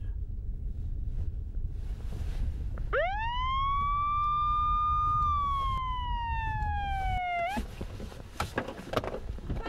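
A single siren wail that rises quickly, holds, then slides slowly down and cuts off, over the low rumble of a moving car heard from inside it. A few faint knocks follow near the end.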